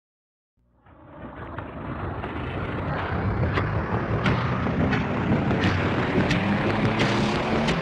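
Electronic intro music fading in as a hissing, static-like swell that grows brighter, over a low drone, with a sharp tick about every 0.7 seconds from about halfway through.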